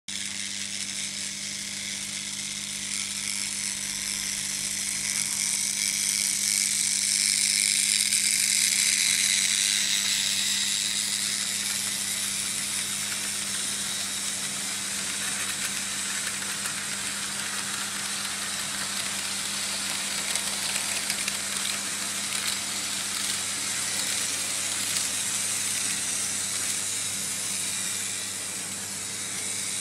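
Märklin H0 model trains running on metal M-track: a steady rolling hiss and rattle of wheels on the rails over an even electric hum. It swells about a quarter of the way in as a train passes close, then settles to a steady level.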